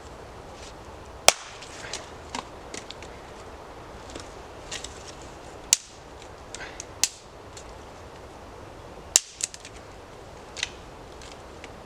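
Dry dead sticks being snapped: several sharp cracks, the loudest about a second in and about nine seconds in, with lighter snaps and crackles between.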